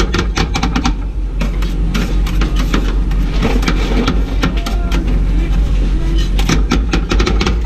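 Metal spatulas chopping and scraping ice cream on a rolled-ice-cream cold plate. A fast run of sharp clicks comes in the first second, softer scraping follows, and rapid chopping starts again about six and a half seconds in, over a steady low hum.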